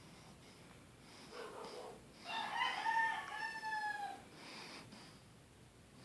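A drawn-out animal call lasting about two seconds, starting about two seconds in and dipping slightly in pitch near its end, after a fainter short call just before it.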